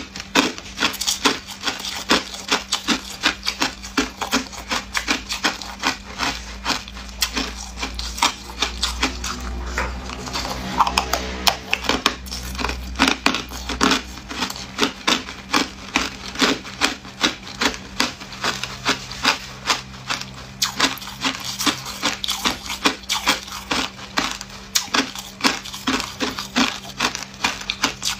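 Hard ice cubes crunched between the teeth: a quick, unbroken run of sharp crunches, about three a second. A low rumble joins in around the middle.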